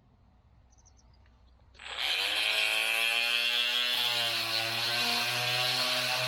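Makita TM30D cordless oscillating multi-tool switched on about two seconds in and running steadily with a buzzing, high-pitched whine. Its tone deepens a little after the middle.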